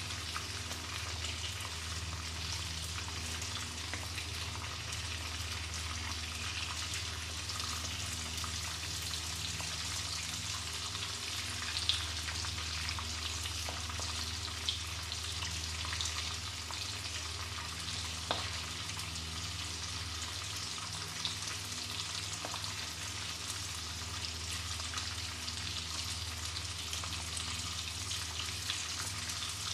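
Coated prawns deep-frying in hot oil in a wok: a steady sizzle with fine crackling, and a few sharper clicks.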